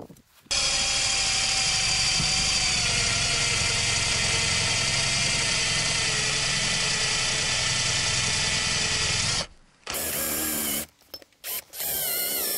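Cordless drill with a twist bit drilling into a metal part. The motor runs steadily for about nine seconds, its pitch dipping slightly a few seconds in, then stops and starts again in a few shorter bursts near the end.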